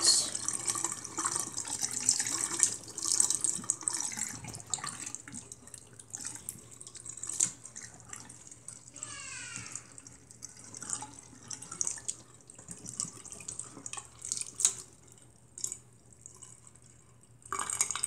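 Water from a Zeny portable washing machine's drain hose pouring into a sink basin, strongest in the first few seconds and then thinning to scattered drips as the drain cycle empties the tub.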